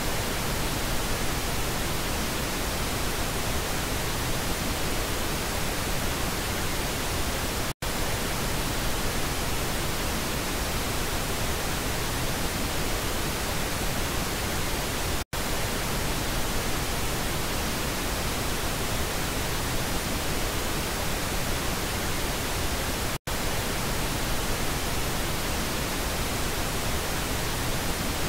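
Pink noise test signal for checking speaker channels: a steady, even hiss across the whole range. It cuts out very briefly three times, about every seven and a half seconds.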